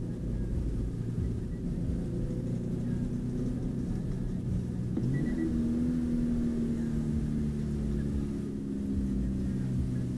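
2020 Subaru BRZ's flat-four boxer engine running under way, heard from inside the cabin with road rumble. About halfway through, the revs climb quickly and then hold steady.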